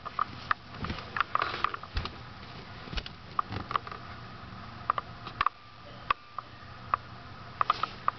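A Syrian hamster moving about its cage and handling food: irregular sharp little clicks, with a brief patch of light rustling about a second in, over a faint steady low hum.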